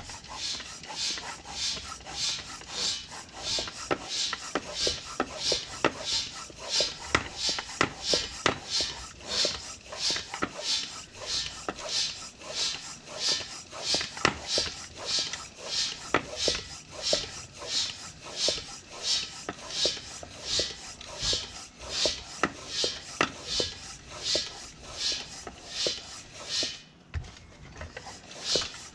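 Manual air pump inflating a freshly plugged ATV tire: an even run of hissing pump strokes, about one and a half a second, with a brief pause near the end.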